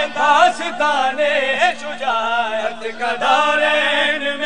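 Men chanting a manqabat, an Urdu devotional poem, in a wavering, melismatic vocal line, with a steady low hum held underneath.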